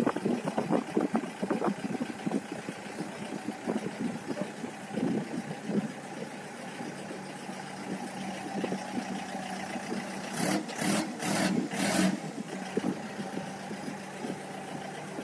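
Engine of a Wallard NMC TC-888 belt loader running steadily at idle. About ten seconds in, four short hisses follow each other quickly.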